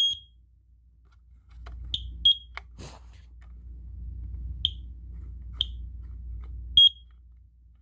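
Smoke alarm's piezo sounder: a long high-pitched beep cuts off right at the start, then five short chirps at the same pitch come at uneven intervals. A sharp click sounds about three seconds in.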